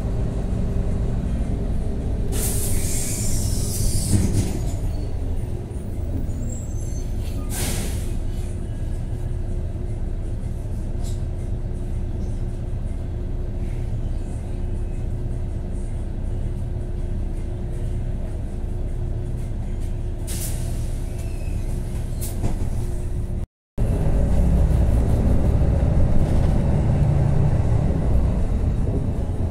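Riding inside a city bus: the engine runs with a steady low drone and hum. Loud air-brake hissing comes about two to four seconds in, with shorter hisses around eight and twenty seconds in. After a brief break near the end, the engine rumble is louder.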